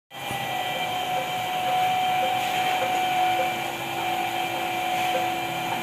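CNC router running: a steady machine whine of several held tones over a noisy hum, with a faint tick repeating about twice a second.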